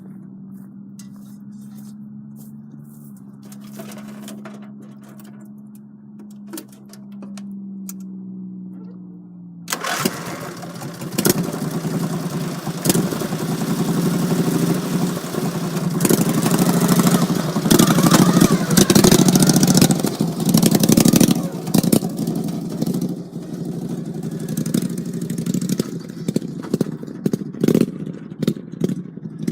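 Small engine of an off-road vehicle idling steadily, then about ten seconds in it opens up and runs hard under load, with the revs rising and falling and a lot of rattling and clatter as the machine drives over rough ground.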